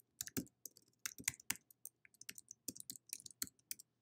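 Computer keyboard typing: faint, quick, uneven key clicks, about five a second.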